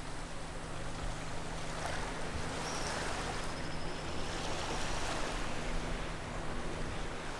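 Small waves lapping on a pebble shore of a calm bay, a steady wash of water noise with a low, even hum underneath.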